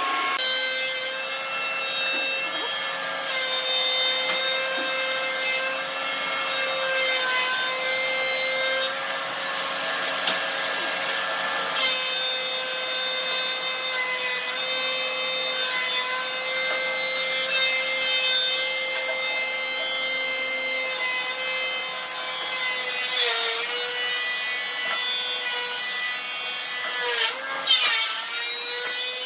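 A power tool's motor running steadily on wood, its pitch dipping briefly twice near the end.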